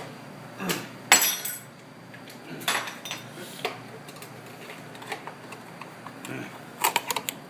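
Metallic clinks, knocks and scrapes from tools working on a speaker's housing as a part is cut out of it: a loud ringing clink about a second in, a few scattered knocks, and a quick run of clicks near the end.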